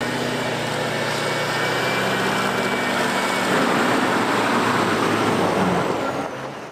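Oshkosh JLTV's turbodiesel V8 running as the vehicle drives, a steady engine and road noise that builds slightly and fades out near the end.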